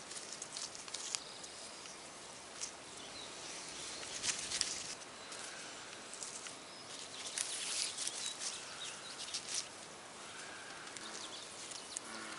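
Long cattail leaves rustling and swishing as they are handled, laid crosswise and woven into a basket, in irregular bursts of crackling.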